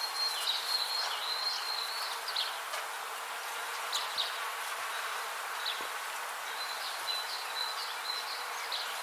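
Many bees buzzing in a steady, even drone, with short high chirps and thin whistled notes, probably small birds, scattered over it. The chirps are thicker near the start and near the end.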